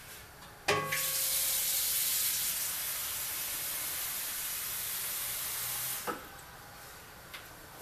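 Water running hard from a tap in a steady hiss, turned on about a second in and shut off about five seconds later.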